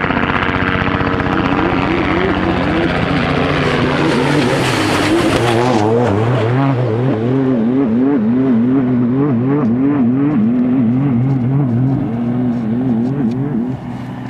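Jimco-built Toyota Hilux trophy truck racing toward and past at speed, loudest as it goes by about five seconds in. As it pulls away over the desert track its engine note rises and drops again and again.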